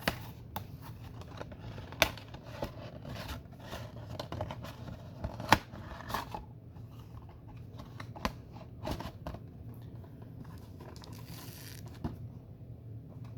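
Trading card packs being handled and opened: scattered crinkles, rips and sharp taps of wrapper and cardboard, loudest about two and five and a half seconds in, over a steady low hum.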